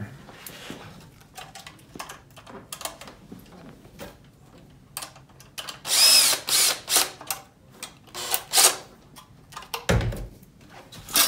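Small metallic clicks from a worm-drive hose clamp being handled, then a Makita cordless driver running for about a second around six seconds in, its motor pitch rising and falling as it turns the clamp screw. A second short burst follows near nine seconds.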